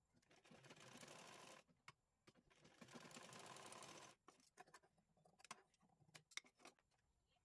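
Sewing machine stitching in two short runs of about a second and a half each, a fast even clatter of the needle. After that come scattered sharp clicks and snips as the scissors trim the fabric.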